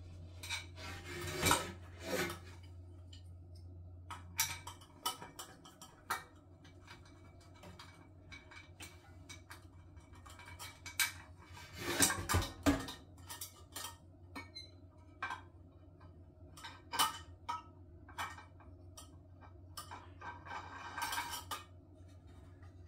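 Glass lid of a Tower multi cooker being handled while its handle is screwed on: scattered clinks and knocks of glass and metal fittings, the loudest cluster about halfway through, over a steady low hum.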